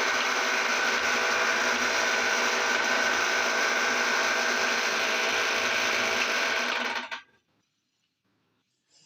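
Electric meat grinder running steadily as it grinds Oreo cookies, then switched off and winding down about seven seconds in. A couple of faint clicks follow near the end.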